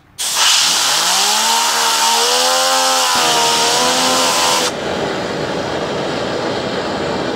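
Loud hiss of a compressed-air blow gun blasting a fidget spinner, with the spinner's whine rising in pitch as it speeds up and then holding. About four and a half seconds in, the whine stops and the hiss drops to a lower steady rushing.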